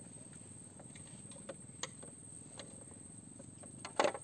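Faint riverside ambience: a steady high-pitched insect drone with scattered soft ticks, and one short, louder knock about four seconds in.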